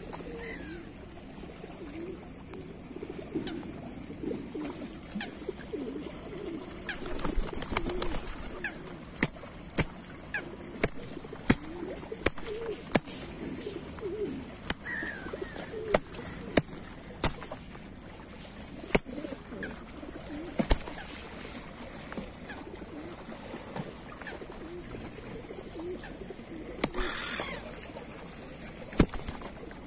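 Rock pigeon cooing in low, wavering coos. Sharp smacks come now and then, about a second or two apart through the middle stretch: the pigeon slapping the reaching hand with its wing.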